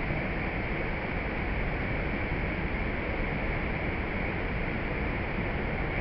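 Steady rushing roar of Jog Falls, a tall plunge waterfall on the Sharavathi river, in full flow.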